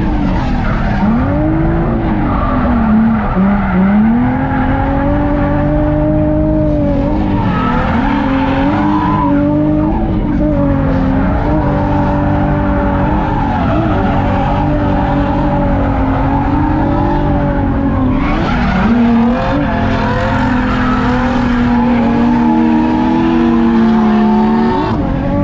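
Nissan 350Z's V6 engine, heard from inside the cabin, held at high revs through a drift, its pitch dipping and climbing again several times as the throttle is worked, with tyres squealing underneath.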